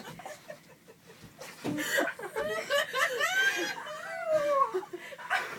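Young women laughing, high-pitched giggles and squeals that start about a second and a half in and run until near the end.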